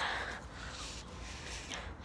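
Breath and mouth noises close to the microphone as a boy chews a leaf: a few short huffs of breath, the strongest at the start, then two smaller ones.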